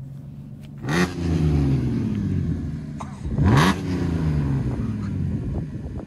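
Supercharged 3.0 TFSI V6 of an Audi A5 through a straight-piped exhaust, revved twice: each time the note climbs sharply with a loud blast, then falls away over about two seconds.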